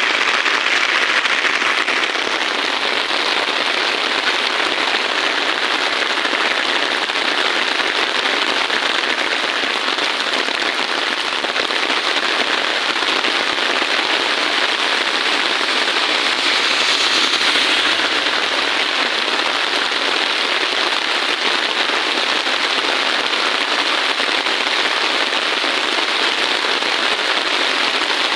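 Heavy rain falling steadily, an even, unbroken hiss of many drops.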